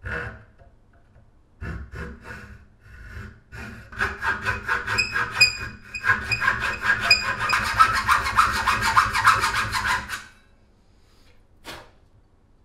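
Hacksaw cutting a slot into the end of a wooden tomahawk handle: a few slow strokes, then quick, even back-and-forth strokes for about six seconds, stopping about ten seconds in.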